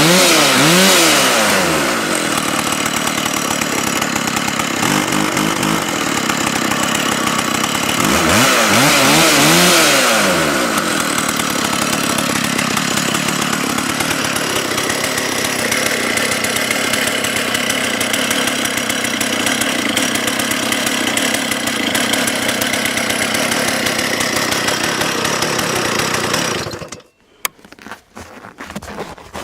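Stihl 084 two-stroke chainsaw revved up and back down at the start and again about eight seconds in, running steadily in between. It cuts off suddenly near the end, leaving a few faint clicks.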